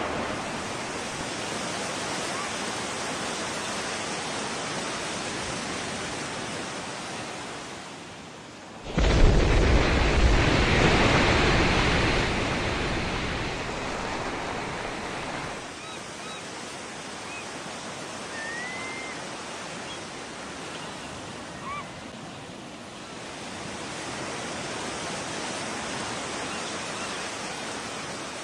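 Underwater nuclear explosion on a film soundtrack: a steady rushing noise, with a sudden loud low rumble about nine seconds in that fades away over several seconds.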